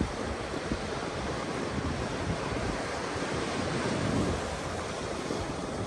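Wind buffeting the microphone in gusts, over a steady rush of surf.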